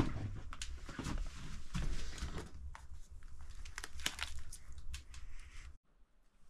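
Paper and cardboard packaging being handled and unpacked: a run of crinkling and rustling with light knocks, which stops suddenly near the end.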